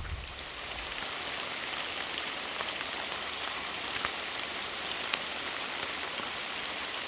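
Heavy rain tipping it down, a steady hiss of falling rain with the odd louder single drop striking close by.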